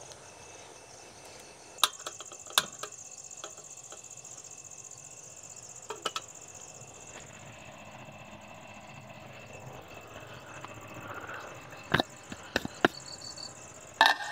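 Forest insects, crickets by the sound's kind, trilling steadily in a high-pitched continuous chirp that comes in about two seconds in. A few sharp clicks or taps are scattered through it.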